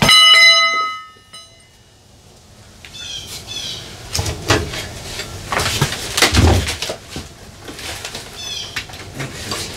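A metallic clang that rings and fades over about a second. Then knocks, clicks and rustling of cables and tools being handled on a metal floor, with a bird chirping twice.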